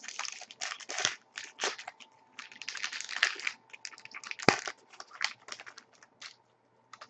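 Foil trading-card pack crinkling and being torn open, with the cards inside rustling as they are handled; irregular rustles with one sharper snap midway, stopping about six seconds in.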